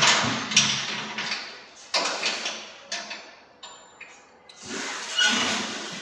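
Heavy rubber tractor tyres being handled and loaded into a pickup truck's bed: a few sudden thuds and scrapes that each fade away, with a lull before more scraping and shuffling near the end.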